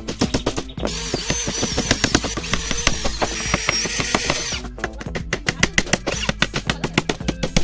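Background music with a steady, quick beat and electronic melody lines.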